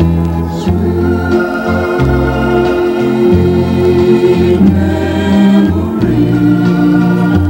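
Organ music: held chords over a bass line that moves to a new note about once a second.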